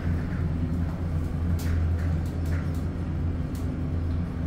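A steady low machinery hum with a few short clicks over it.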